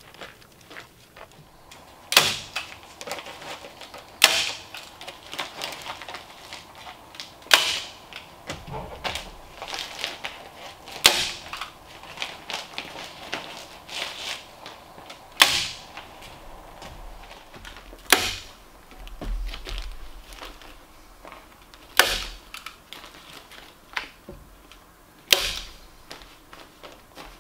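Kraft-faced fiberglass insulation batts rustling as they are handled and pushed into place between floor joists, cut by about eight sharp clacks a few seconds apart.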